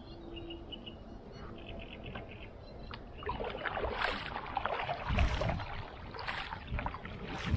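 Kayak paddle strokes: the blades dip and splash in calm lake water, starting about three seconds in and repeating roughly once a second, with low bumps between the splashes.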